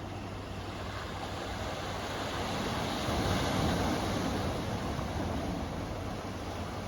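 Ocean surf washing in, a noisy rush that swells to its loudest about three seconds in and then eases, over a steady low rumble.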